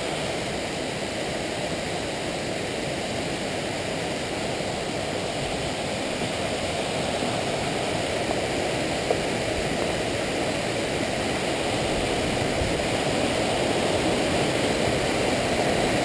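Waterfall running: a steady rush of falling water that grows slightly louder toward the end.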